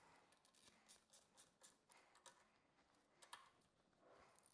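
Near silence, with faint scattered ticks from a socket ratchet tightening the carburettor mounting nuts.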